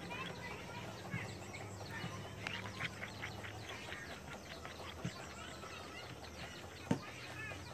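Plastic spatula stirring a runny ube batter of egg, margarine and condensed milk in a bowl: soft wet sloshing and small clicks over a low steady hum, with one sharper knock against the bowl about seven seconds in.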